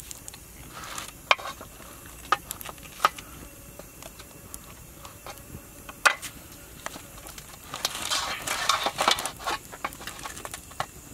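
Cooked king crab being broken apart by hand over a metal basin: separate sharp cracks and clicks of shell, and of the knife against the basin, then a denser run of crackling about eight seconds in as the shell is pulled apart.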